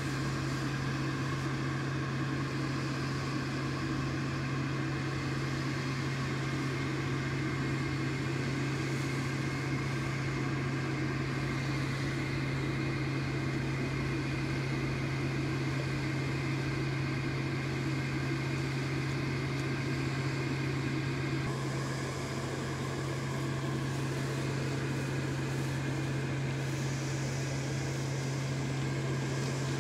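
Steady hum of a running electric motor, such as an air blower, with a strong low drone; its tone shifts slightly about two-thirds of the way through.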